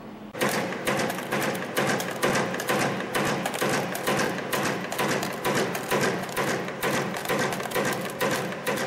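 YHM FB-210 CNC wire forming machine running in production, its cam-driven forming slides clattering in a steady rhythm of about two cycles a second as it bends 1.3 mm wire into omega clips. The clatter starts suddenly just after the beginning.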